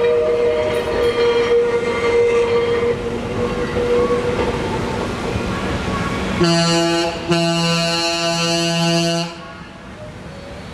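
Blackpool illuminated tram running past on its rails with a steady whine. About six seconds in, a horn sounds, first a short blast and then a longer, pulsing one, and cuts off suddenly a little after nine seconds.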